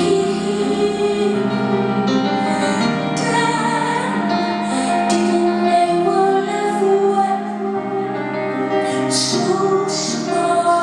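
A woman singing live over held keyboard chords, the notes long and sustained.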